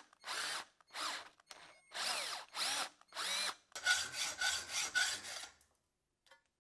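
Hacksaw cutting through a steel pin held in a vise: about ten back-and-forth strokes, each a scraping rasp with a squealing ring from the metal. The strokes become quicker from about four seconds in and stop just before the end.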